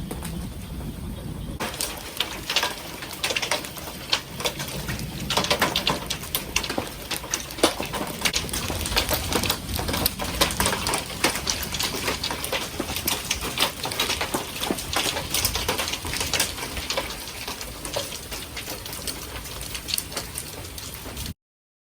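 Hail clattering on hard surfaces amid rain: a dense, irregular patter of sharp ticks that starts abruptly about a second and a half in and stops suddenly just before the end.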